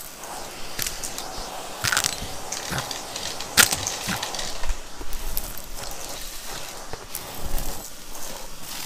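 Shark Navigator vacuum sucking up crunchy debris: irregular crackles and sharp clicks over the motor's hiss, with the sharpest snap about three and a half seconds in.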